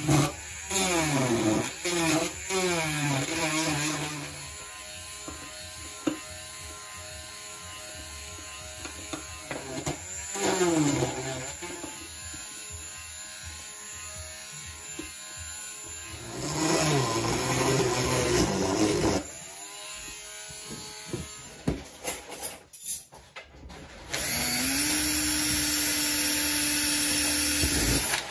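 Small power drills boring holes into a PVC pipe. A cordless drill runs in short bursts, its pitch falling as it slows each time, and a rotary tool with a thin bit also drills into the pipe. Near the end a drill fitted with a stepped bit spins up and runs steadily for a few seconds.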